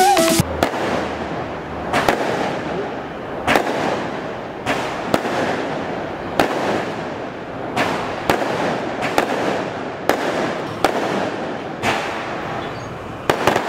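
Fireworks going off in sharp single bangs at irregular intervals, about one a second, over a steady crackling haze.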